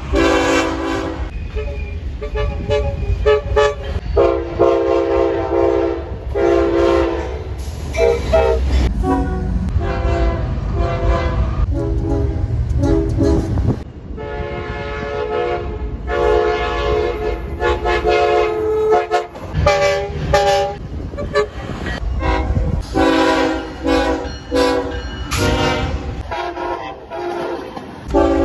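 Train horns sounding a string of chord blasts, some short and some held for a second or two, one clip after another, over a low rumble of the trains.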